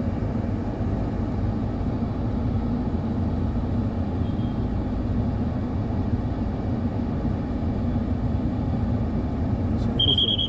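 Steady low rumble of a vehicle engine and road noise while riding slowly through city traffic, with a short high beep near the end.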